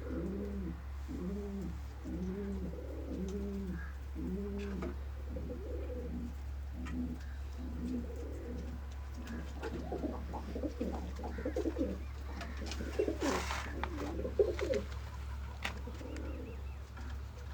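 Pigeon cooing: a run of evenly repeated rising-and-falling coos, about one and a half a second, then denser, irregular cooing with a brief rustle around thirteen seconds in. A steady low hum runs underneath.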